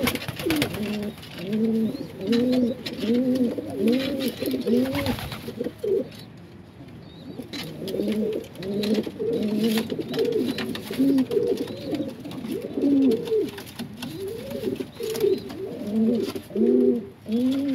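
Domestic pigeons cooing over and over, arched coos coming about two a second with a short pause about six seconds in, mixed with sharp wing slaps as two birds fight over a nest box.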